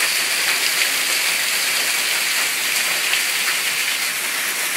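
Hailstones pouring in a steady stream off a gutter clogged with hail and landing on a pile of ice, with more hail falling around in a dense, steady hiss of small ticks.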